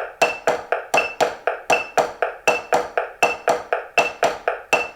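Drumsticks striking a 12-inch RealFeel rubber practice pad in a steady, even stream of strokes, with a metronome beeping once a beat at 80 beats per minute.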